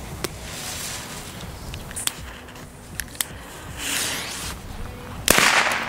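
Small friction-head firecrackers going off on gravel: a few sharp little cracks, a short hiss about four seconds in, and a louder sudden burst a little past five seconds.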